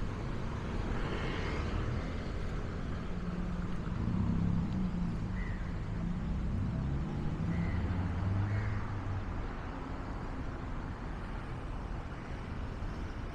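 Steady city road traffic: engines of passing cars and motorbikes, growing louder as vehicles pass about halfway through, with a few short high chirps over it.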